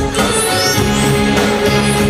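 Pop dance music from a band with drum kit and electric bass, playing a steady beat.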